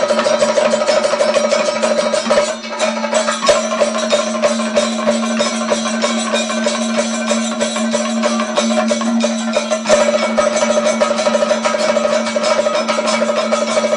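Kathakali percussion ensemble: chenda and maddalam drums beaten in a fast, dense rhythm, with a steady held tone underneath.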